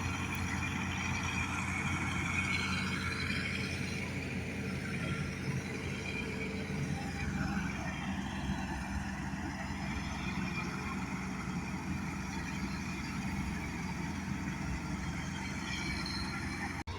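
Combine harvester running steadily as it cuts wheat: a continuous low engine drone with machinery noise.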